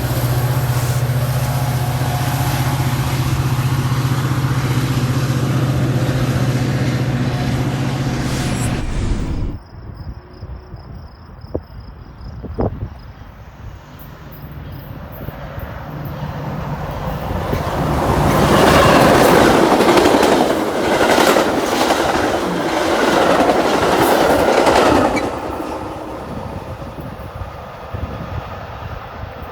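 Diesel train locomotive running with a loud, steady low drone that cuts off abruptly about nine seconds in. Later a train passes: the noise of its wheels on the rails, with repeated clicks, swells, holds for several seconds, then fades.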